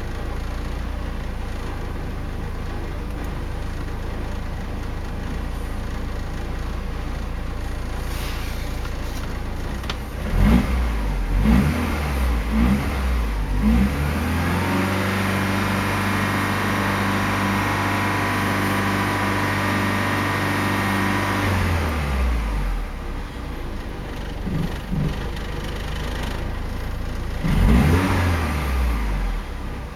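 Porsche 944 inline-four engine heard from inside the cabin. It idles, is blipped several times, is held at raised revs for about seven seconds before dropping back to idle, and is blipped once more near the end. It is running on good used hydraulic lifters fitted in place of defective ones.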